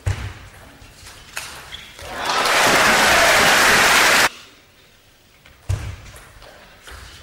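Table tennis play in a hall: a thud and a few sharp ball hits, then a crowd applauding and cheering for about two seconds after a point, cut off suddenly. Near the end another thud and a few hits as the next rally starts.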